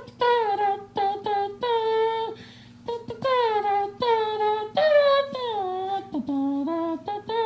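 A high voice singing a tune in short held notes with small slides between them, over a steady low hum.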